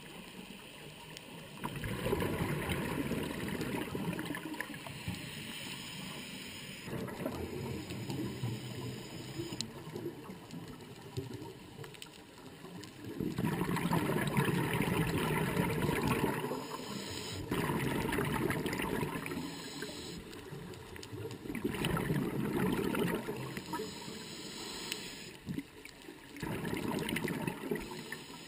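Scuba diver breathing through a regulator underwater: each exhale sends out a spell of bubbling that comes back every four seconds or so, with quieter gaps for the inhale between.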